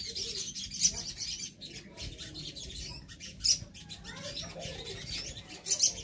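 A group of caged brown-throated sunbirds (sogon) calling: a continual stream of high, thin chirps and twitters, with louder sharp calls about a second in, near the middle and near the end.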